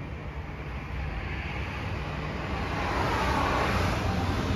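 Street traffic: a passing vehicle's tyre and engine noise growing steadily louder, over a low rumble of wind on the microphone.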